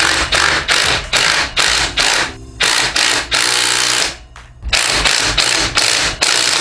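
Ratchet wrench being cranked in quick repeated rasping strokes, about three a second, with two short pauses, while tightening the motorcycle's fasteners.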